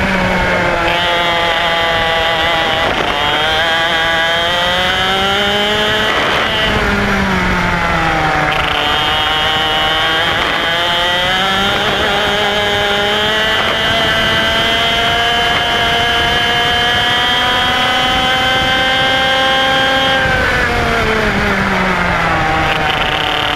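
IAME X30 125cc two-stroke kart engine at racing speed, its revs dropping off into corners and climbing again on each exit several times, with the longest climb in the middle before the revs fall again near the end.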